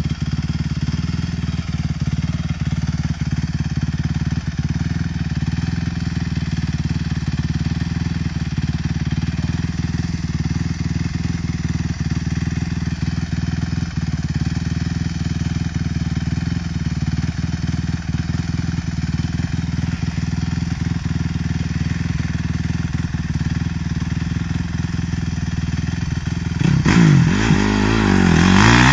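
Honda 250cc four-stroke motocross bike's single-cylinder engine running steadily at a low, even speed, then revving up loudly with rising pitch about two seconds before the end.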